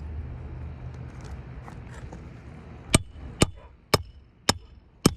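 Five sharp hammer strikes, about two a second, starting about three seconds in: a hammer hitting a roofing snake to drive a nail through a reinstalled asphalt shingle into the roof decking. Before them, a low wind rumble on the microphone.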